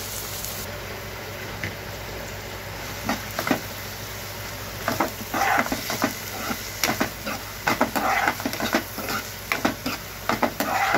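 Chopped onions sizzling in hot oil in a frying pan, with a metal spoon scraping and clinking against the pan as they are stirred. The stirring strokes start about three seconds in and grow busier from about halfway.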